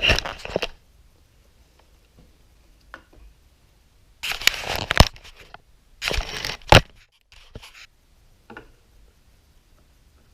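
Hands handling RAM-mount mirror parts: two bouts of rustling and scraping, each with a sharp click, then a few faint ticks.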